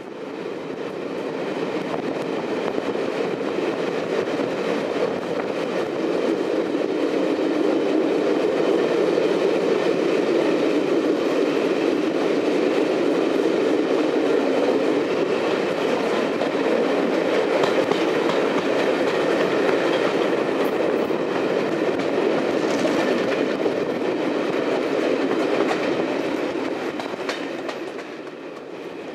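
A train running along the rails with a steady rumble, swelling over the first few seconds and fading away near the end.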